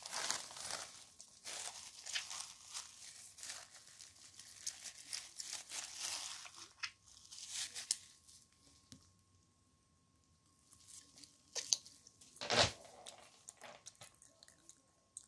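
Crumpled paper wrapper crinkling and tearing in the hands, with a dense crackle for the first several seconds, then it goes quiet apart from a few clicks and one sharp knock about two-thirds of the way through.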